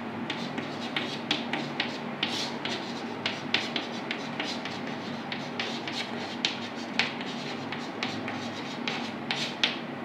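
Chalk writing on a blackboard: irregular short taps and scrapes as the letters are formed, over a low steady room hum.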